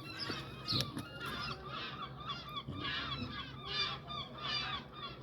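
A flock of gulls calling, many short cries overlapping one after another.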